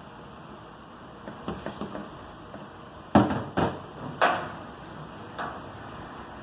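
A few sharp clunks and knocks, with lighter clicks before them, as water-line hoses and fittings are handled and fitted to a tankless electric water heater. The three loudest come close together a little past the middle.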